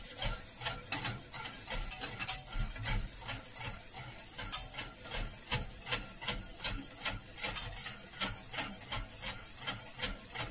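Spatula stirring and scraping thick, simmering tomato ketchup around a steel pot, in a steady rhythm of about two strokes a second.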